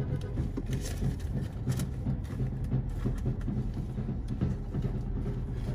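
Masquerade band drumming in the street, irregular low beats heard from inside a car.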